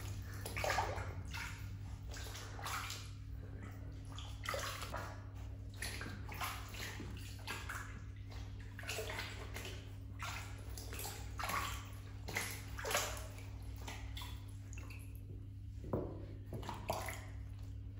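Water sloshing and splashing in a small plastic tub as hands rub and scoop water through a wet ragdoll cat's fur, in irregular strokes often about a second apart.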